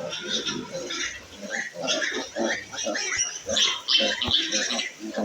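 Piglet squealing in a rapid string of short, shrill cries while being held for castration.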